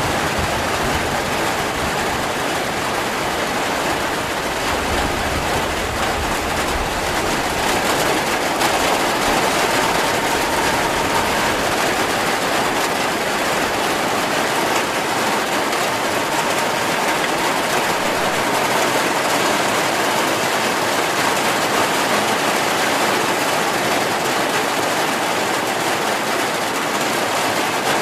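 Heavy rain falling steadily, an even unbroken hiss, with a low rumble that fades out over the first several seconds.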